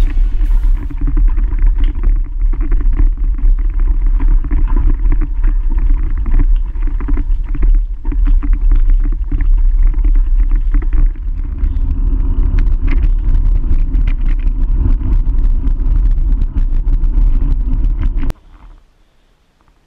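Wind buffeting the microphone while riding a touring bicycle, with road rumble and rattles. The loud low rumble cuts off suddenly near the end.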